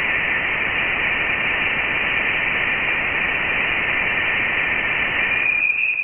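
Voyager 1 plasma-wave data from interstellar space converted to audio: a steady, radio-like hiss with nothing above a fairly low ceiling. A narrower whistling tone stands out near the end before the sound cuts off. The sound comes from plasma waves in the thin interstellar gas.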